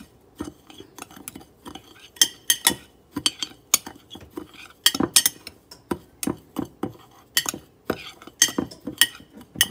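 Metal utensil stirring dry seasoning mix in a glass Pyrex dish, scraping and clinking against the glass in repeated short, irregular strokes, about two a second.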